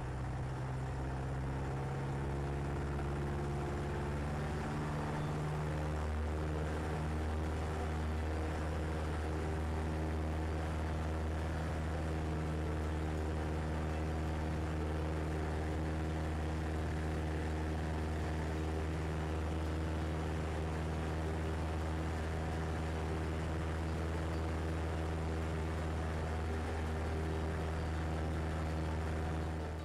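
CubCrafters Carbon Cub's piston engine and propeller running at takeoff power during the takeoff roll and climb-out, a steady even drone heard inside the cockpit; the tone shifts slightly about six seconds in.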